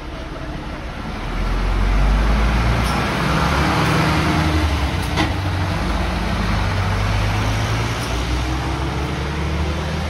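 2001 Isuzu Erga short city bus's diesel engine pulling away from a bus stop, loud from about a second in. The engine note steps up and down as it gathers speed, with a sharp click about five seconds in.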